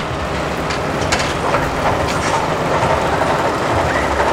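Roller coaster car running along its steel track: a steady rumble with a few sharp clacks in the first couple of seconds.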